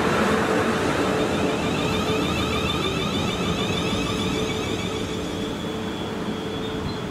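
Class 450 Desiro electric multiple unit running past close by: steady wheel-on-rail running noise with a steady electric hum, gradually getting quieter over the last few seconds as the coaches go by.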